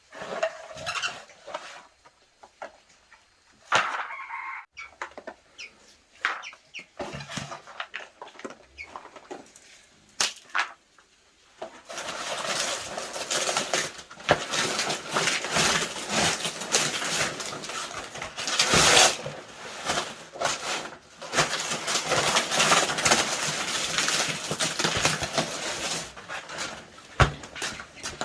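Chickens clucking and flapping their wings, at first in scattered short sounds, then from about twelve seconds in as a dense, continuous commotion.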